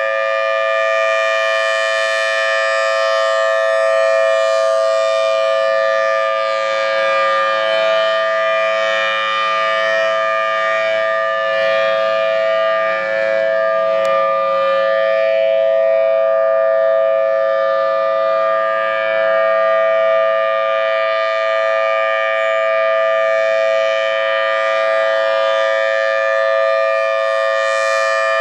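Federal Signal Thunderbolt 1003 dual-tone rotating tornado siren sounding a steady alert tone at full speed, a flat two-note chord that swells and fades a little in loudness.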